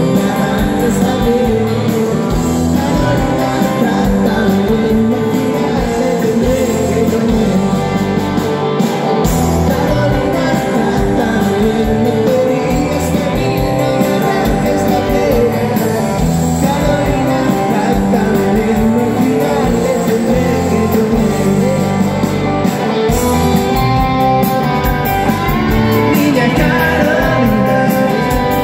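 Live rock band playing electric guitars, bass guitar and drums, with a man singing into a microphone.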